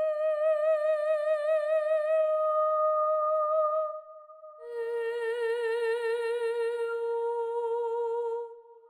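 Background music: slow, long held notes with a gentle vibrato, one note for about four seconds, then a lower one for the rest.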